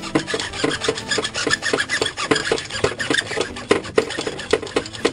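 A hacksaw cutting through 1½-inch PVC pipe in quick back-and-forth strokes, about three strokes a second.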